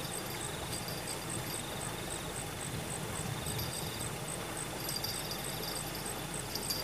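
Crickets chirping steadily at a high pitch, about three chirps a second, with a second insect trilling a little lower. Under them is an even rush of flowing water.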